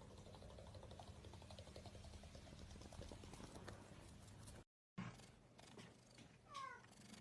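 Near-silent room tone with a faint low hum, then near the end one short, faint cat meow falling in pitch.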